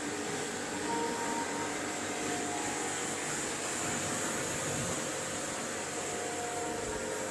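Max Power MP5 portable electric pressure-washer pump running steadily, with the hiss of its nozzle spraying shampoo water onto a car.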